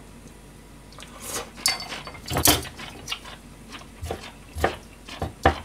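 Kitchen clatter: a run of separate knocks and clinks of utensils and dishes, about eight in all, the loudest a little over two seconds in.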